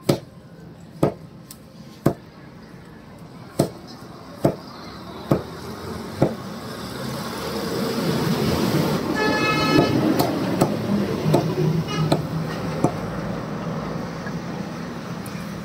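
A butcher's cleaver chopping chicken on a wooden block, seven heavy chops about a second apart. Then the background traffic noise rises and a vehicle horn sounds about nine seconds in, with a few lighter knocks after it.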